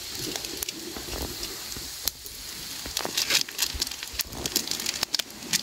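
Small open wood fire crackling, with irregular sharp pops over a steady hiss, under fish grilling on sticks above the embers.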